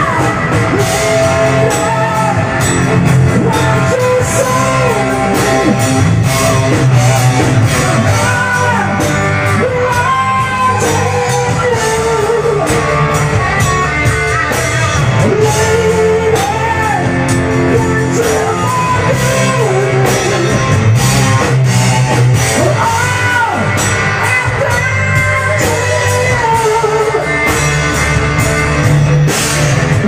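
Live rock band playing loud: electric guitars, drum kit and keyboards, with a male singer's voice over them.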